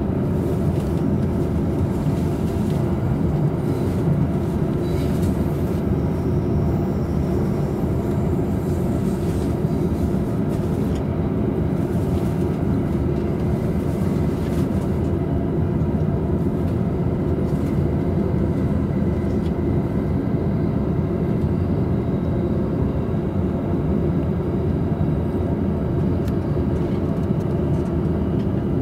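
Steady running noise inside a double-decker Green car of a JR East Tokaido Line local train travelling between stations: a continuous low rumble of the wheels on the rails that holds even throughout.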